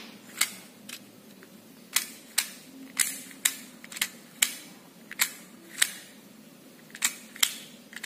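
Sharp clicks from a white CNC-machined rotary air-rifle magazine as pellets are pressed into its chambers one after another: about a dozen clicks, irregularly spaced, some in quick pairs.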